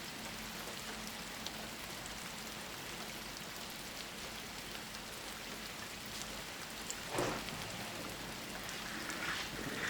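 Steady rainfall hissing on surfaces, with a brief louder burst about seven seconds in. Thunder begins to rumble right at the end.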